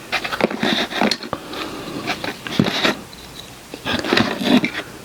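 Hard plastic toy parts being handled, with irregular clicks, taps and scraping as the pieces are moved and fitted together.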